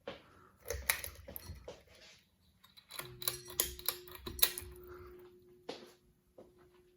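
Hampton Bay Clarkston ceiling fan being switched on: a run of irregular clicks and knocks, then the fan motor's steady hum starts about three seconds in and carries on.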